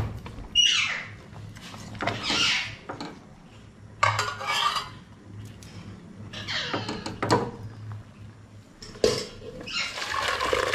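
A steel ladle scraping and clinking against a steel kadhai of cooked masoor dal, several separate strokes a second or two apart. Near the end the thick dal is poured from the kadhai into a steel pot.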